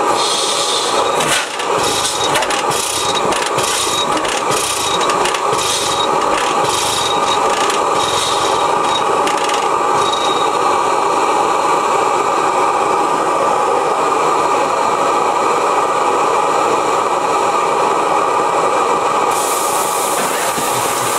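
1905 Reid two-cycle hot-tube oilfield engine being turned over with an air starter: evenly spaced puffs about one and a half a second for the first ten seconds, over the steady rush of the propane burner heating the hot tube. A sharper hiss sets in near the end.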